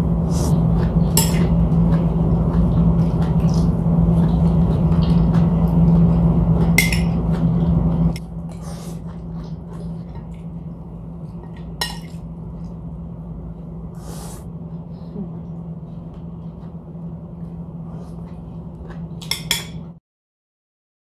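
Spoon and fork clinking now and then against ceramic plates and bowls during a meal, over a steady background hum that drops in level about eight seconds in. All sound cuts off abruptly near the end.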